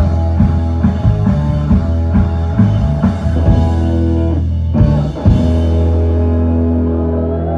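Live rock band, electric guitars and drum kit, playing a driving passage with regular drum hits. About five seconds in the drumming stops and the band strikes and holds one chord that rings out.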